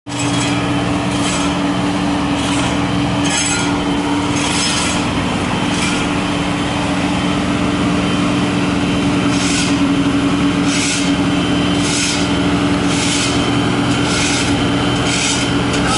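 Asphalt paver's diesel engine running steadily, with the scratch of a broom sweeping the pavement about once a second.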